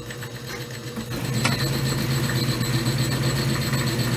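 Atlas 618 six-inch belt-driven bench lathe switched on and turning in reverse. Its motor and spindle run up over about the first second, then run with a steady hum. A single click comes about a second and a half in.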